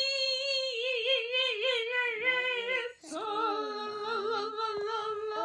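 A child's high voice singing long held notes without words. The first note wavers up and down in pitch, breaks off about three seconds in, and a second held phrase follows.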